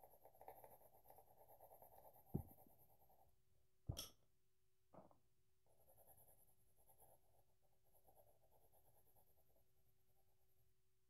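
Colored pencil scratching faintly on paper as it colors in, in two stretches, with a few sharp knocks in the pause between, the loudest about four seconds in.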